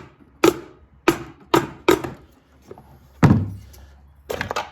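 A hammer tapping on the crankcase cover of a PowerSmart 170cc overhead-valve mower engine to break it loose from a gummy gasket: about five separate sharp knocks, the loudest a little past halfway, then a quick run of lighter taps near the end.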